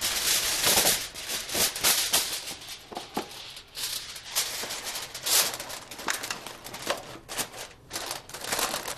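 Heavy-duty aluminum foil crinkling as a sheet is shaken out, then pressed and crimped around the edges of a pan. It makes a rapid, irregular run of crackles throughout.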